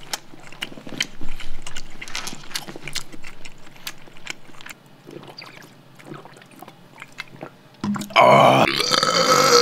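Close-miked chewing of soft tofu: many small wet mouth clicks and smacks. About eight seconds in, a much louder pitched vocal sound, treated with auto-tune so it holds steady tones, cuts in.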